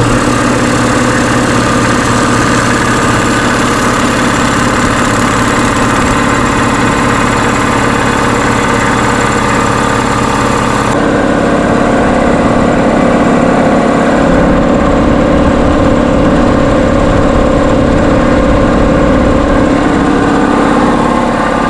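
Craftsman 30-gallon, 2 hp electric air compressor running loud and steady as its pump builds pressure in the tank. It starts abruptly at the outset, and its sound changes abruptly about halfway through.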